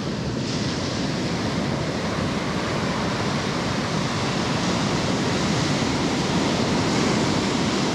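Ocean surf rushing steadily onto the beach, with wind buffeting the microphone.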